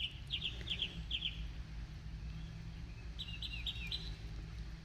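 A small bird chirping in short, quick high notes: a run of three rapid pairs near the start and another run a little past the middle, over a steady low hum.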